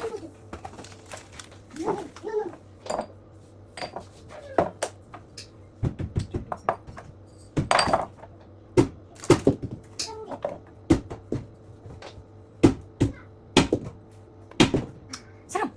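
Dishes and cutlery being handled: a busy, irregular run of clinks and knocks of crockery and utensils, with a cupboard knock or two.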